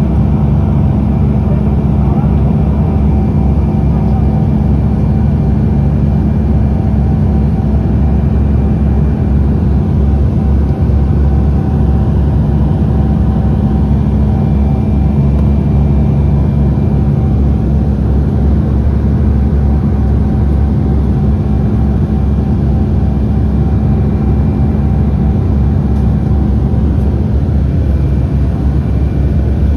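Cabin noise of a Dash 8 twin-turboprop airliner in flight: a steady drone from the propellers and engines, with a low hum and a few steady tones over it.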